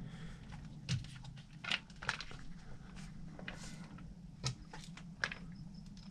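Scattered light clicks and taps of a plastic RC crawler wheel and its parts being handled and fitted onto the truck's axle, over a steady low hum.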